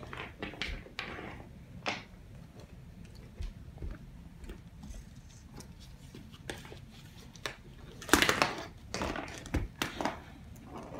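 Small plastic toys clicking and knocking as they are handled, then, about eight seconds in, a louder rattle as a toy monster truck's plastic wheels are pushed across a hardwood floor.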